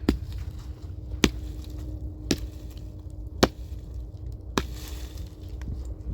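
Axe chopping firewood: five sharp strikes spaced about a second apart, followed by a brief rustle of wood.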